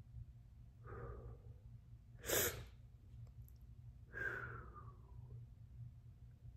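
A man breathing heavily through a superhot chili burn: a faint breath about a second in, a sharp, forceful blast of breath a little after two seconds (the loudest sound), and a long sighing exhale with a falling pitch about four seconds in.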